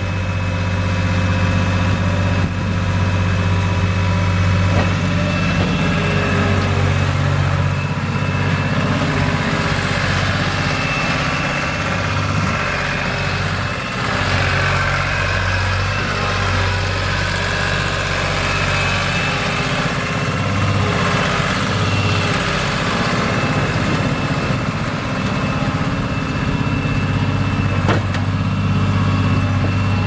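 New Holland LX885 skid steer's three-cylinder diesel engine running as the machine drives and works its bucket. The engine speed rises and falls in the middle and then steadies, with a thin high whine above it.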